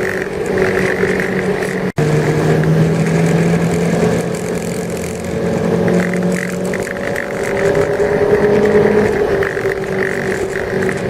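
Motorboat engine running steadily under way, its pitch drifting slightly. About two seconds in the sound cuts out for an instant and resumes at a slightly different pitch.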